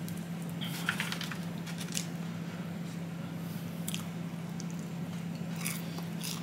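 Close-up eating of a breaded fried chicken finger: a handful of short, crisp bites and chewing noises spread through, over a steady low hum.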